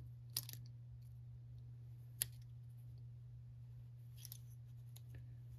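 A few faint, sharp little clicks of a tiny screwdriver prying at a plastic limiter cap on a Zama carburetor's adjustment screw, the sharpest about two seconds in, over a steady low hum.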